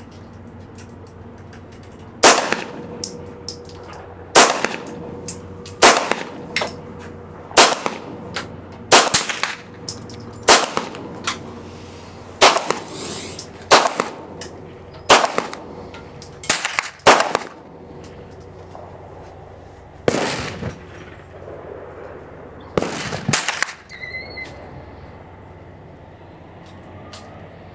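.22 LR rifle shots fired one at a time, about fourteen in all, one every second or two, with a short ring after each; the firing stops a few seconds before the end.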